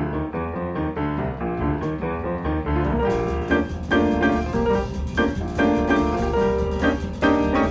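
Background music led by piano, which grows brighter and fuller about three seconds in.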